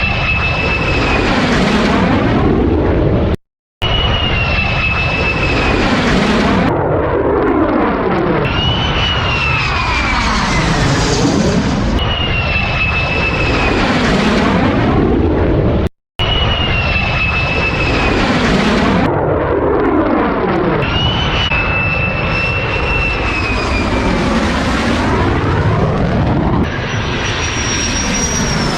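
Fighter jet passing over again and again, each pass with a high engine whine that falls in pitch. The loud jet noise is broken by two short silences, about three and a half seconds in and again about sixteen seconds in.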